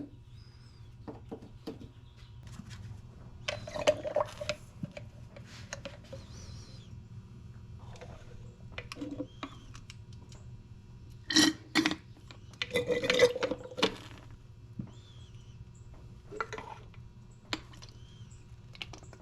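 Scattered clinks, knocks and handling noises from working on the power steering under the hood, with a few liquid sounds, over a steady low hum. Busier clattering comes in a few bursts, the longest about two-thirds of the way through.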